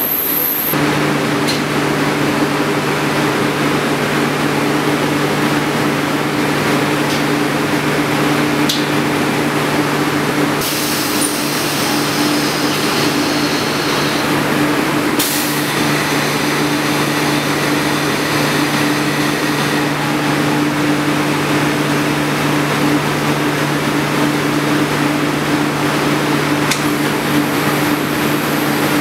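Jensen 9364 multi-stage ultrasonic washing line running: a steady machine hum with two low tones, one an octave above the other, over a broad hiss. The hiss grows brighter for a few seconds in the middle.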